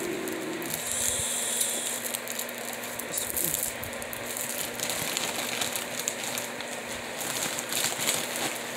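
Rummaging through a bag of makeup brushes and cosmetics: plastic packaging rustling and small items clicking and clattering against each other.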